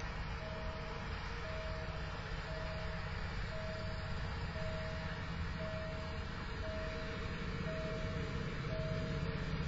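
Steady train rumble heard from aboard a moving train, with an electronic beep repeating about once a second at one unchanging pitch.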